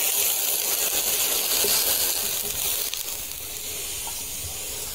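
Water hissing and steaming in a hot metal wok it has just been poured into, the hiss dying down after about three seconds as the pan cools.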